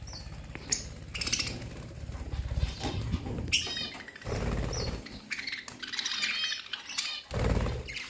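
A flock of caged budgerigars chirping and warbling in short, overlapping calls, with dull low thuds now and then.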